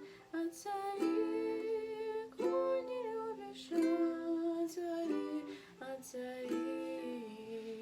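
Ukulele playing chords, with notes plucked and held.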